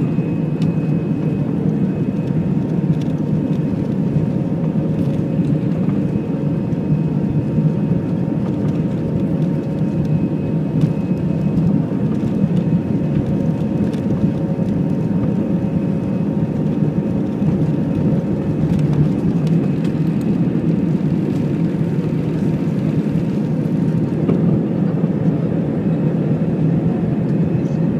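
Airbus A319-112's CFM56 turbofan engines at takeoff thrust, heard inside the cabin over the wing: a steady, loud engine noise with faint steady whining tones above it, through the takeoff roll and climb-out.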